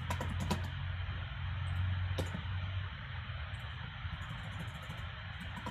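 A few scattered keystrokes on a computer keyboard, clustered near the start and again near the end, over a steady low hum and hiss.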